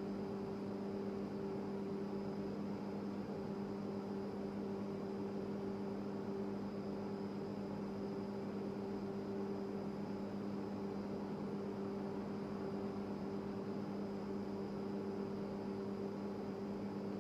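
Steady room hum with two low tones, a faint high whine and a light hiss; no other sound stands out.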